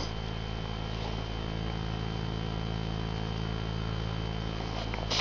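A steady, even hum made of several low tones and a thin high whine, which cuts off abruptly at the end.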